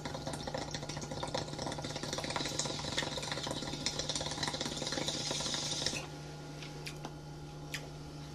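Water bubbling in a glass bong as smoke is drawn through it, a fast dense gurgle that cuts off suddenly about six seconds in. Two short clicks follow, over a steady low hum.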